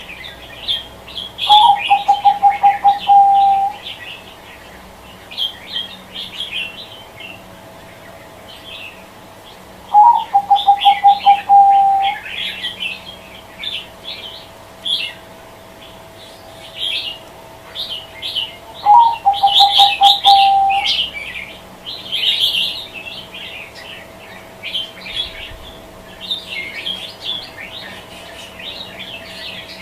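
Zebra dove (perkutut) cooing: a short rising note, then a rapid run of quick staccato coos lasting about two seconds. It comes three times, about nine seconds apart, over continual high twittering chirps of other birds.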